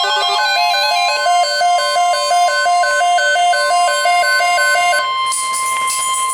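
Emergency Alert System alert audio: a looping electronic jingle of two rapidly alternating notes, with a steady high attention tone held underneath. The jingle stops about five seconds in, followed briefly by a high crackle, while the tone carries on to the end.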